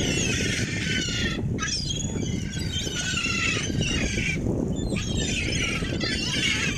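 A flock of gulls calling, many squawking calls overlapping, with short lulls about a second and a half in and again after about four and a half seconds. A steady low rumble runs underneath.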